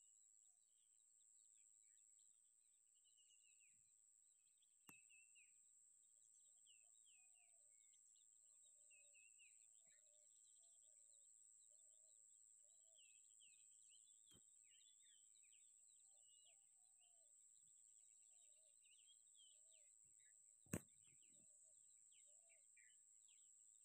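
Faint chorus of birds calling: many short chirps and whistles, with lower, shorter calls mixed in, over a steady high-pitched whine. A sharp click about 21 seconds in is the loudest sound, with fainter clicks about 5 and 14 seconds in.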